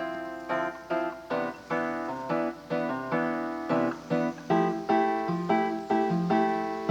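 Background music: plucked guitar and piano notes in a steady, gentle rhythm.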